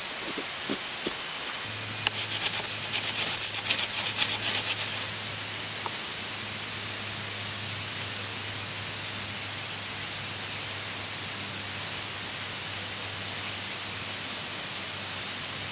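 A few knife strokes shave a wooden feather stick. From about two seconds in, a rapid run of harsh scrapes lasts some three seconds: a knife scraping a ferro rod and throwing sparks onto the shavings, which catch. After that there is only a steady hiss and a faint low hum.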